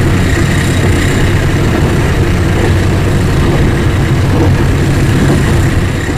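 Train running with a loud, steady, low engine rumble.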